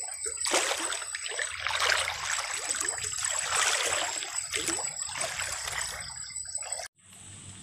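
Shallow freshwater stream water trickling and splashing, with a thin steady high tone above it. The sound cuts off abruptly near the end.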